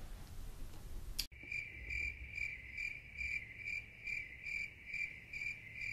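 Cricket chirping sound effect, a high, even chirp repeating about two or three times a second. It cuts in sharply about a second in, after faint room tone, as the comic 'crickets' cue for an awkward silence.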